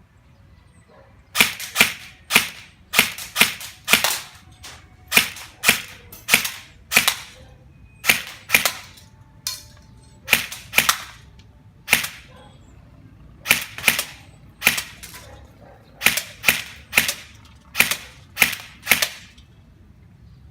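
SAI GRY airsoft rifle firing single shots, about thirty short sharp reports in all, often in quick pairs or threes with short pauses between groups, starting about a second and a half in.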